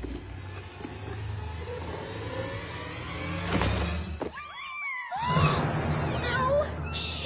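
Soft film score with a cardboard box opened about three and a half seconds in, then several kittens mewing in short rising-and-falling cries.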